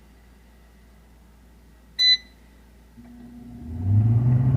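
A single short electronic beep from an air fryer's control panel about two seconds in. A second later the appliance's fan motor starts with a low hum that rises in pitch and grows louder as it spins up.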